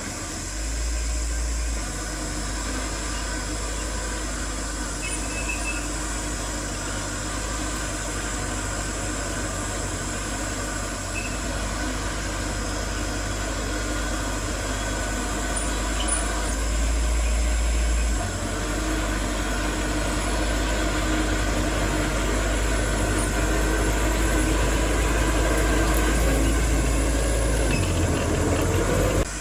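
Heavy diesel construction machinery running steadily, a deep engine drone that swells briefly in loudness near the start and again a bit past halfway.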